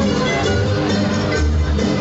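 Loud music with a recurring bass pulse, played for a dancing group.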